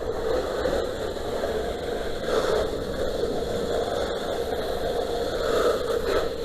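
Engine-driven fire-fighting equipment running steadily, an engine hum under a rushing hiss.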